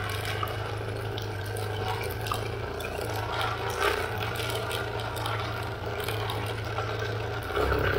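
A vehicle driving on a rough dirt road: its engine runs with a steady low drone, along with rattling and crunching from the tyres on the loose dirt and gravel.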